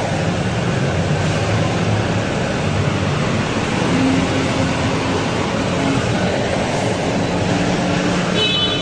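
Steady road-traffic noise with a low engine rumble. A brief high-pitched tone comes near the end.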